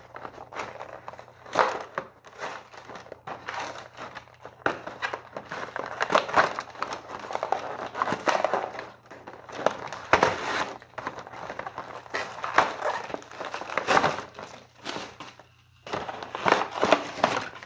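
Clear plastic blister packaging crinkling and crackling as it is handled and worked free of its cardboard box, with sharp clicks and snaps among the crackles and a short lull near the end.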